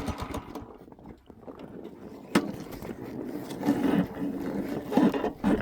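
Quiet after the engine has been shut off, with a single sharp click about two seconds in and a few soft thumps and rustles near the end.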